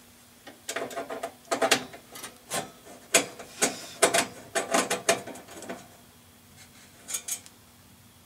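A shield being pulled off a jukebox's light fixture, a run of scrapes, rubs and knocks over about five seconds, then two quick clicks near the end.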